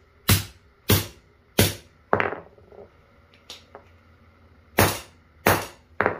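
A mallet striking a bent outboard-motor shift shaft on a concrete floor to straighten it. Sharp blows come about every half second: four at first, then a pause with a few lighter taps, then three more near the end.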